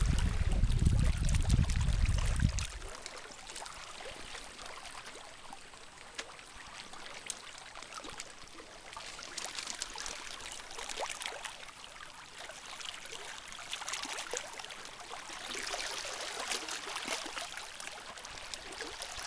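Small waves lapping and trickling over a flat rock shoreline shelf, a fine splashing that swells and fades in gentle surges. A low rumble on the microphone covers the first two or three seconds.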